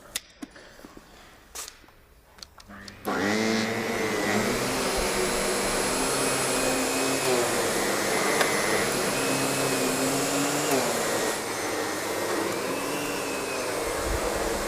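Upright vacuum cleaner switched on about three seconds in, after a few soft clicks, then running steadily with a high whine and a motor tone that wavers slightly.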